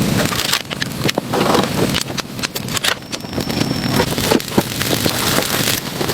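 Dense, irregular crunching and cracking with many sharp knocks, with a brief thin high tone for about a second midway.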